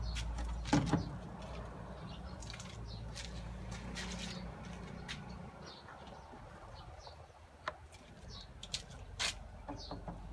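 Scattered clicks and knocks from handling and opening up a washing machine, the loudest pair about a second in and a few more near the end. A bird chirps repeatedly in the background.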